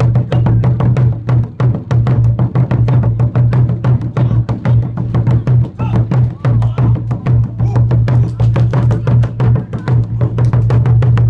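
Large barrel drums beaten with sticks in a fast, unbroken rhythm, several strikes a second over a deep, sustained boom.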